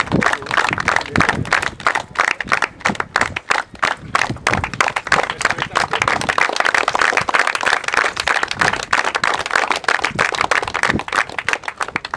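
A small group of people clapping by hand in continuous applause.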